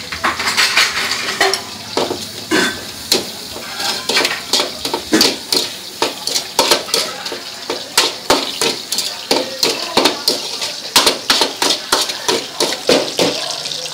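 Long metal spatula scraping and clanking against a steel wok in quick repeated strokes, stir-frying chopped vegetables and meat over a steady sizzle.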